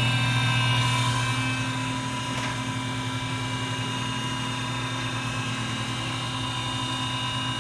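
Electric hydraulic pump motor of a vehicle lift running with a steady, even hum as it raises a pickup truck.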